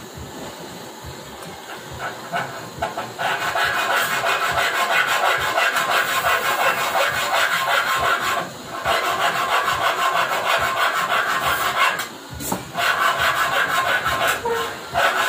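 Gas torch flame hissing steadily, joined about three seconds in by a loud rasping scrape of metal being rubbed or filed. The scraping breaks off briefly twice.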